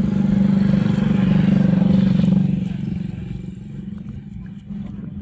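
A motor vehicle's engine running close by with a steady hum, loudest about two seconds in, then fading away.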